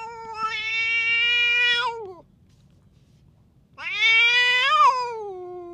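Cat giving two long, drawn-out yowling meows about a second and a half apart. The first holds a steady pitch and then drops away. The second rises, peaks and slides down.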